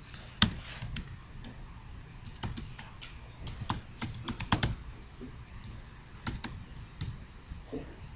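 Typing on a computer keyboard: irregular clusters of key clicks with short pauses between them, and one sharper, louder keystroke about half a second in.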